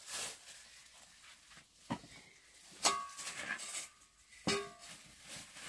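Background music: a few sparse plucked-string notes, three clear plucks each ringing briefly, over a faint hiss.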